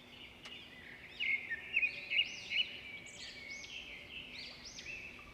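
Birds chirping and calling, many short repeated notes overlapping, loudest a little over a second in.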